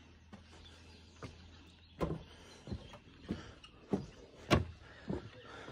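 Footsteps on a wooden plank boardwalk: a row of hollow thuds, about three every two seconds. They are faint at first and grow louder from about two seconds in.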